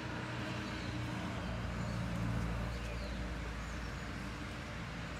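Steady low background rumble with a few faint, short bird chirps.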